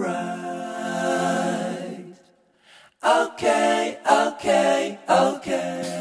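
Unaccompanied singing: one long held note for about two seconds, a brief break, then short sung syllables in quick phrases.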